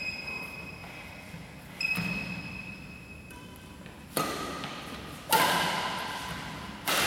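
Badminton rackets striking a shuttlecock during a rally: four sharp smacks spaced one to two and a half seconds apart, each ringing out in the echo of a large hall, the loudest a little past halfway.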